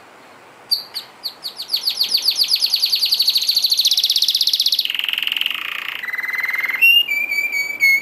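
A canary singing. A few separate chirps give way to a long, fast run of repeated notes that quickens, followed by shorter trills at other pitches.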